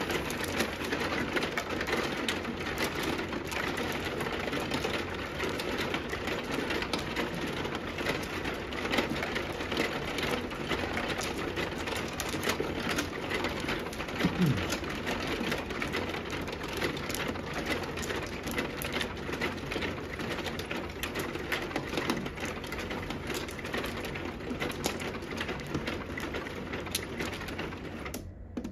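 Plastic mahjong tiles clacking against each other and the felt as they are drawn and discarded, over a continuous dense rattle from the automatic mahjong table's shuffling mechanism. The rattle cuts off suddenly near the end.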